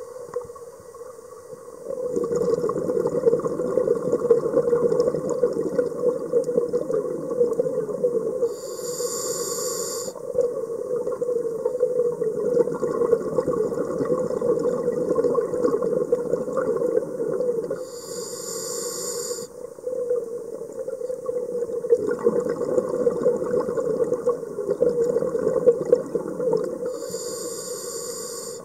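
Scuba regulator breathing underwater, heard through a camera's underwater housing. Three short hissing inhalations about nine seconds apart, each followed by several seconds of bubbling exhaled air.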